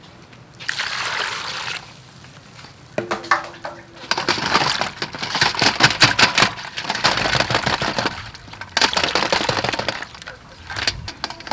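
Live mud crabs being washed by hand in water in a stainless steel bowl: water splashing, with the crabs' shells and claws clicking and knocking against each other and the bowl. A short rush of water about a second in, then steady splashing and clatter from about four seconds in.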